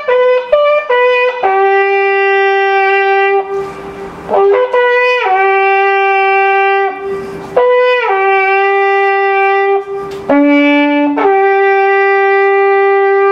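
Long straight wooden shepherd's horn played solo. Its phrases step down from a few short higher notes into long held notes lasting a few seconds each, with short breaks for breath between them.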